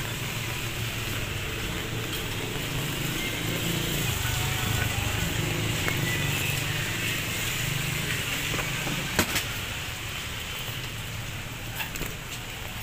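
Light rain falling on a city street, a steady hiss, with vehicle engines running low underneath. Two sharp knocks about nine seconds in.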